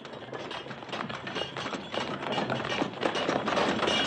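Cannon on wheels rolled fast over a stone floor: a rattling, clattering rumble that grows louder as it approaches, with running footsteps mixed in.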